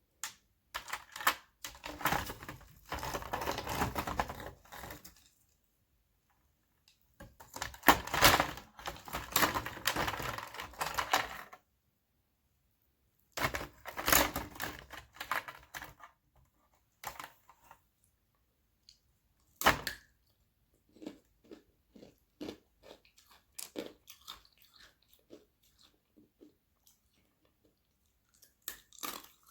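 Thin sheets of frozen carbonated-water ice crunching and cracking, in three dense bursts over the first half. Scattered small cracks and clicks follow, with one sharp crack about twenty seconds in.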